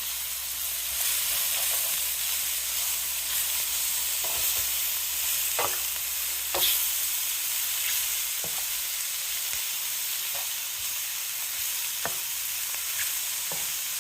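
A vegetable stir-fry of cabbage, onions, yellow pepper and mushrooms sizzling in oil in a pan, a steady hiss. Several light clicks sound as a utensil stirs and knocks against the pan.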